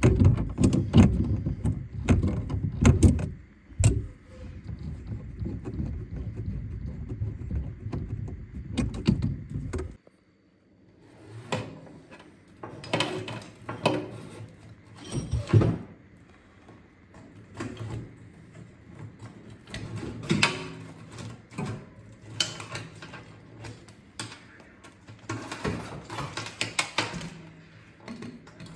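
Scattered clinks, knocks and rustling of metal and plastic parts and tools being handled during faucet installation work. For about the first third a low rumble runs under the clatter and then cuts off abruptly.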